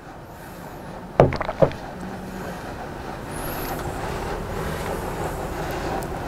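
A ceramic mug set down on a hard surface, giving two or three sharp knocks about a second in, over a steady rushing background noise that slowly grows louder.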